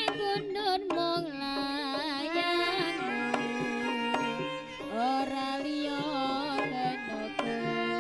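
Live jaranan ensemble music: hand-drum strokes under a wavering, sliding melody line and a steady low drone.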